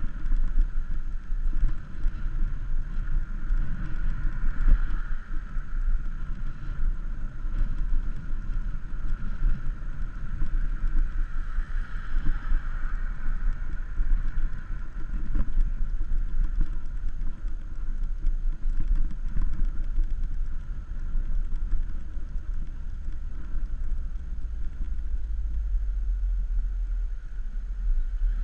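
Steady wind rumble and road noise picked up by a handlebar-mounted camera on a bicycle riding along a street, with no clear individual events.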